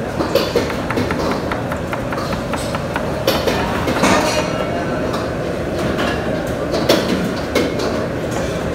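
Steady background hum with scattered light clicks and knocks.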